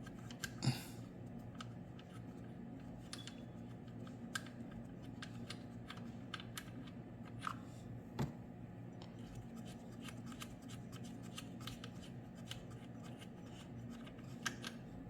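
Hand ratchet clicking in short, irregular runs as an 18 mm motor-mount bolt is backed out, over a low steady hum.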